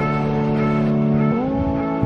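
Background music of held, sustained chords that slide up in pitch about a second and a half in.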